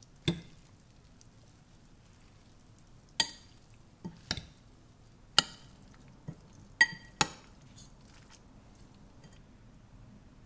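Utensils and dishes clinking in a kitchen: about eight sharp, irregular clinks with a short ringing tail, as of metal or ceramic striking a bowl or plate.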